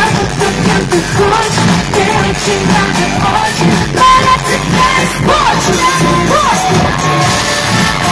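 Loud live pop music over a concert sound system: a woman singing over a steady beat, holding a note and sliding up and down through it about halfway through.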